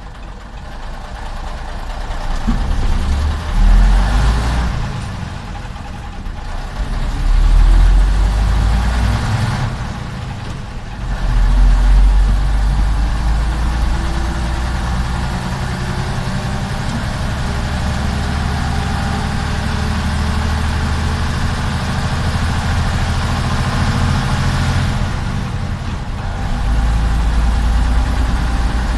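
Jelcz 043 bus's diesel engine heard from inside the cabin, pulling away and accelerating: the revs climb and drop three times in a few seconds, as at gear changes, then settle into a steady cruising run that rises again near the end.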